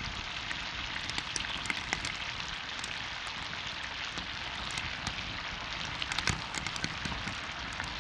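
Thick bone-in beef chop sizzling on a hot barbecue grill: a steady hiss with frequent small pops and crackles of spitting fat.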